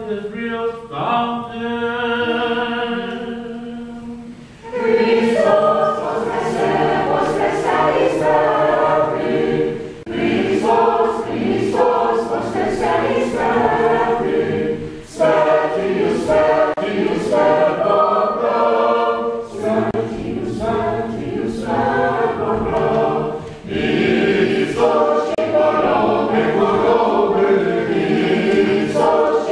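Orthodox church choir singing Paschal liturgical chant unaccompanied, in several voice parts. A held chord fades over the first few seconds, then the choir sings on in phrases with short breaths between them.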